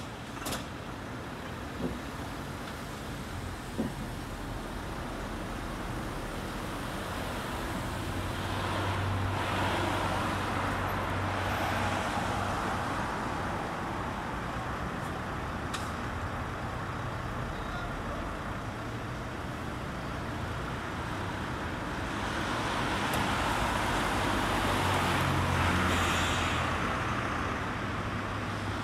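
Road traffic on the street: steady engine and tyre noise that swells twice as vehicles pass, about ten seconds in and again near the end, with a couple of small knocks early on.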